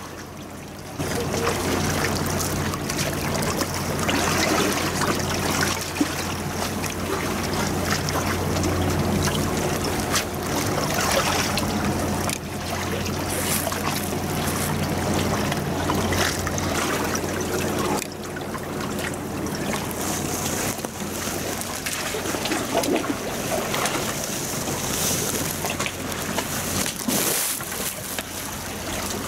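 Water lapping and splashing at a harbour seawall, over a steady low drone of a running engine or machinery. The sound gets louder about a second in and then stays even.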